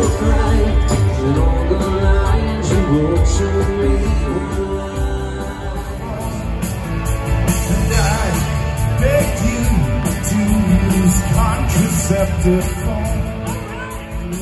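Rock music with a lead singer and a heavy bass line, playing without a break.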